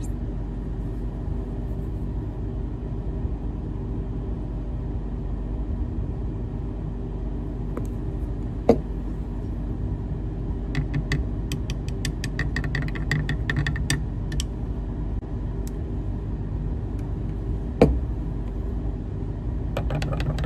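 A metal utensil stirring liquid soft-bait plastic in a glass measuring cup, with light clinks and scrapes against the glass for a few seconds in the middle and two sharp taps, one near the middle and one near the end. Under it runs a steady low hum.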